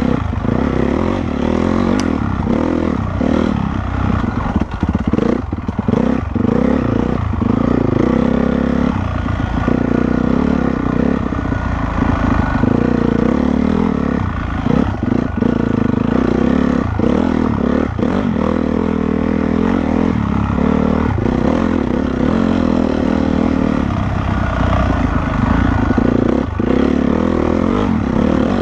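Honda CRF450R's single-cylinder four-stroke engine running hard as the dirt bike is ridden, its note rising and falling with the throttle and dipping briefly a few times about five to six seconds in.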